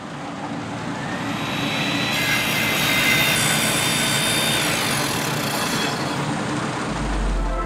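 Sound effects of an animated logo intro: a rumbling whoosh that swells over the first few seconds and slowly dies away, with a deep low boom near the end.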